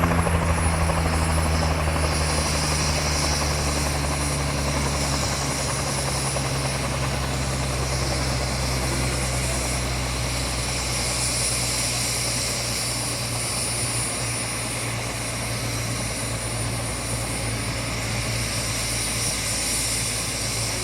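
A helicopter running close by, its rotor beat and a high turbine whine going steadily. Over the first few seconds the pitch sinks slightly and it gets a little quieter.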